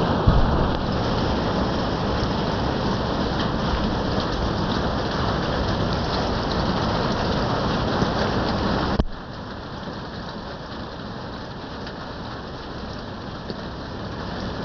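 Rain falling on a roof, a steady hiss with one brief knock just after the start. It drops abruptly to a quieter level about nine seconds in.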